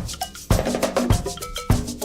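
Background music with a steady beat of drums and percussion.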